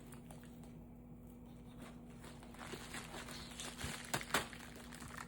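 Faint rustling and a few sharp taps and clicks from plastic packaging being handled as a parcel is unpacked, starting a couple of seconds in, with a low steady hum underneath.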